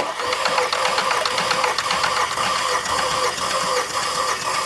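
Starter cranking a 2010 Volkswagen Tiguan's 2.0 TSI four-cylinder engine with its spark plugs removed, for a compression test on cylinder one; it starts suddenly and spins at an even, steady rhythm without firing.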